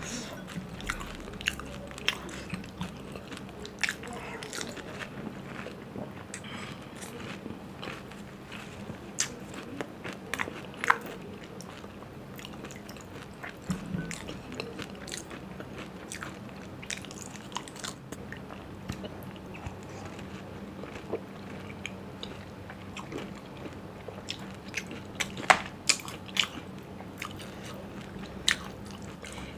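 Eating golgappe (pani puri): crisp puri shells cracking between the teeth with wet chewing, sharp crunches scattered irregularly throughout and the loudest ones a little past three quarters of the way.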